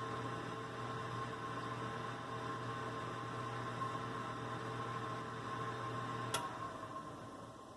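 Whirlpool convection oven's fan running with a steady electrical hum. About six seconds in a sharp click sounds, the hum cuts out, and the fan sound dies away.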